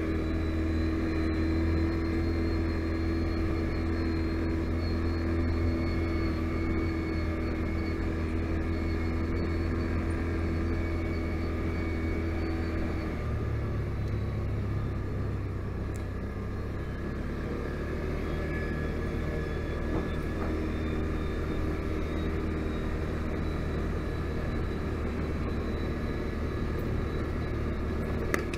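Can-Am Outlander 570 ATV's V-twin engine running steadily under way. Its note changes about halfway through.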